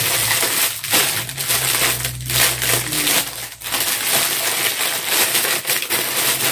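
Clear plastic packaging crinkling and rustling continuously as it is handled and pulled open to free a sandal.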